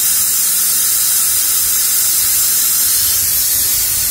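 Vacuum coolant extractor hissing steadily with its tank valve open, sucking coolant out of the engine's cooling system through a suction hose.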